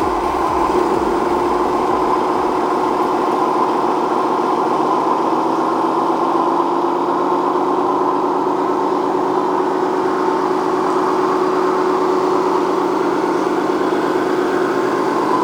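Steady whine of a radio-controlled scale model's electric motor and gearing, running continuously, its pitch rising slightly around the middle.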